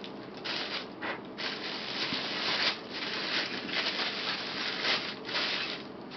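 Clear plastic bag crinkling and rustling in the hands as a camera body is unwrapped from it, coming and going unevenly with short lulls.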